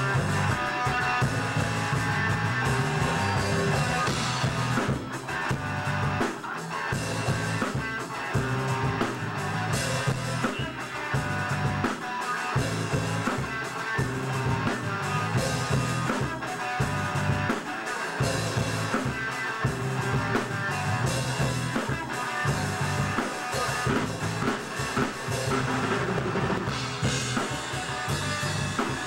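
Live rock band playing: electric guitar over a Pearl drum kit with steady bass drum and snare hits.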